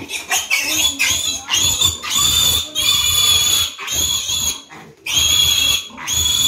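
Piglet squealing hard in a run of long, high, shrill cries, the longest lasting about two seconds, as it is caught and held up by its legs for a deworming injection.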